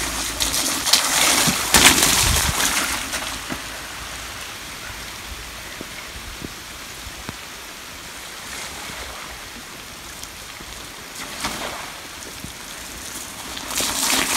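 Mountain bike tyres splashing through puddles on a wet lane, loudest about one to three seconds in and again near the end, over a steady hiss of rain.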